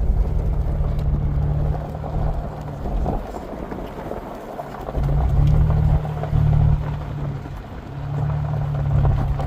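Car driving on a road: engine running with tyre and road noise. The engine note is strong for a couple of seconds, eases off, comes back strongly about five seconds in and again near the end.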